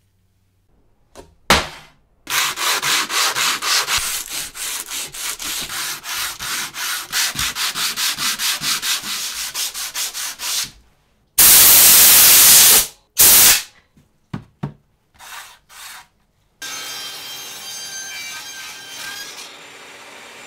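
Hand sanding a wooden board with a sandpaper block: rhythmic back-and-forth strokes, about four a second, for several seconds. Then comes a loud hiss about a second and a half long, the loudest thing here, followed by a few short bursts of noise, and near the end a table saw running steadily.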